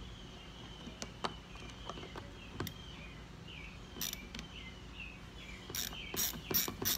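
Light metal clicks of a screwdriver and nut being worked on a cleat screw through a plastic kayak hull: a few scattered clicks, then a quick run of clicks near the end. A faint high, steady trill runs underneath.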